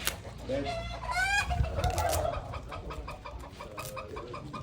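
Farmyard animals calling: a short, high call about a second in, followed by a run of rapid, evenly spaced clucking pulses.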